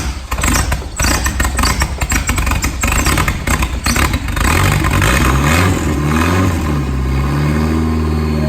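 Turbocharged Nissan SR20 four-cylinder engine running through an open turbo with no downpipe. For about four and a half seconds it sputters and crackles unevenly, then it catches and runs steadily, its pitch dipping and rising before it settles.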